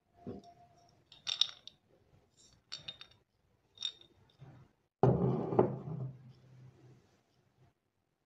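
A few light clinks and taps of tableware, then about five seconds in a louder knock and rattle as a jar of dry fruits is set down on the wooden table.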